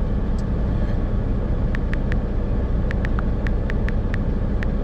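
Semi truck's diesel engine idling steadily. From about two seconds in, a run of quick, unevenly spaced clicks from a phone's on-screen keyboard as text is typed into a form.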